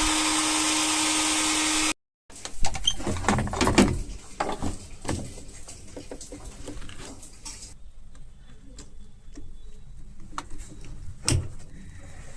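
A steady whirring motor noise with a constant hum cuts off suddenly about two seconds in. After that come scattered clicks and knocks of small hard objects being handled.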